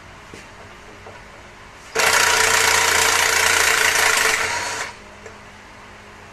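A pneumatic air tool, such as an impact wrench or air ratchet, running in one burst of about three seconds. It starts abruptly and tails off at the end.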